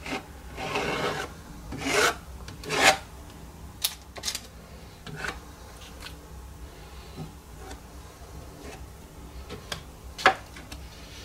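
A credit card scraping thick acrylic paint and impasto gel across a small stretched canvas, with about three rasping strokes in the first three seconds. After them come a few short sharp clicks and quieter rubbing.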